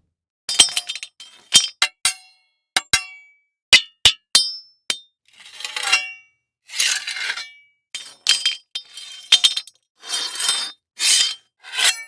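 A run of sharp metallic clinks, about ten in the first five seconds, several ringing briefly. In the second half come longer rattling clatters of about a second each, like loose metal pieces shaken or scraped together.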